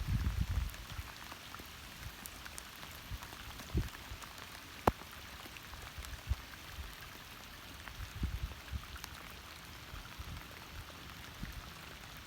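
Steady rain, with scattered sharp drop hits and a few low thumps, the loudest thumps in the first second.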